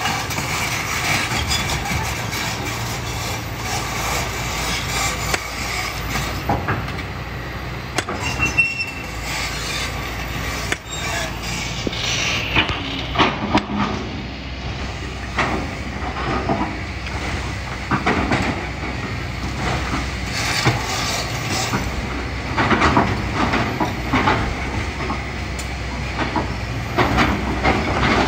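Kobelco SK200 excavator at work: a steady diesel engine hum under irregular clanking, scraping and clattering as the bucket digs through sand, gravel and rock.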